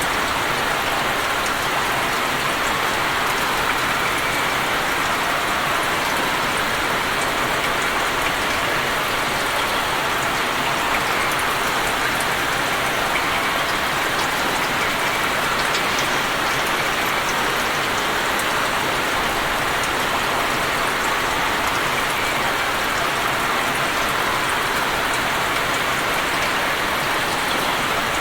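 Steady rain falling on open water, a dense, even hiss of drops pattering on the surface with scattered individual drop ticks.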